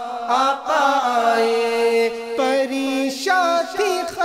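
Male voice singing an Urdu naat in a long wordless melodic passage, holding one note for about a second midway, over a steady drone.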